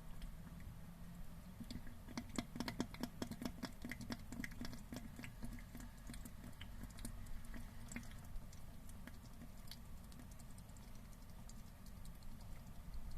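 Large mud crab breathing out of water, a fine crackle of tiny clicks as froth bubbles at its mouth. This is the sign of a crab with no fresh seawater left to circulate. The clicks come thick and fast for a few seconds about two seconds in, then thin out to scattered ticks.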